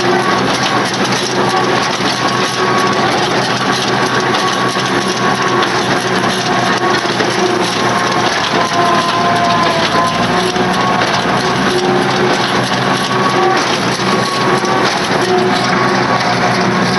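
Tractor and old 24T square baler running steadily while baling hay: a continuous mechanical clatter over the engine's drone, with faint whining tones that shift in pitch now and then.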